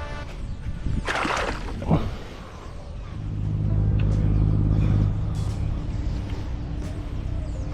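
Low engine rumble that swells in about three seconds after a couple of short scuffs, holds for about two seconds, then settles to a steady hum.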